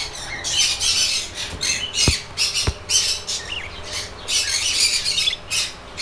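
Budgerigars chattering and squawking in repeated shrill bursts, with two light knocks about half a second apart near the middle.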